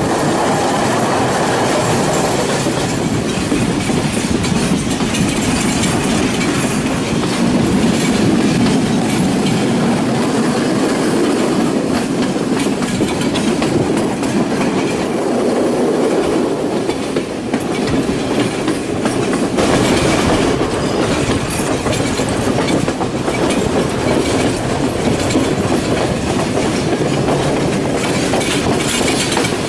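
A passenger train running along the track, heard from aboard a carriage: a steady rumble with the rattling clickety-clack of the wheels on the rails.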